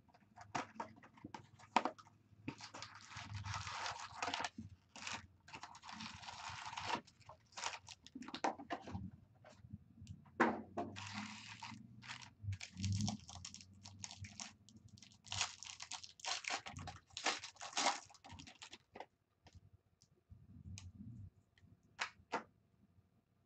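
A cardboard hobby box being opened and its foil-wrapped Bowman Draft Jumbo card packs pulled out and stacked on a desk: irregular crinkling and tearing rustles with scattered clicks. The rustling thins out toward the end.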